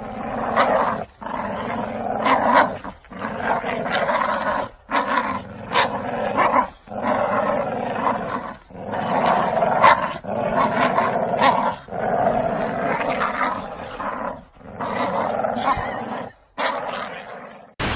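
A dog growling in a series of long, rough bouts, each lasting one to two seconds with short breaks between them.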